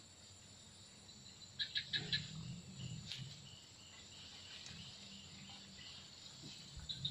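Insects droning steadily in a high, even hum, with a run of about four quick, sharp chirps a second and a half in, over a faint low rumble.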